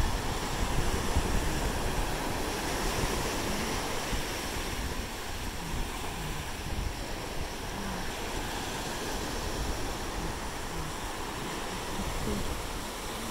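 Steady rush of wind and surf, with wind buffeting the microphone in an uneven low rumble.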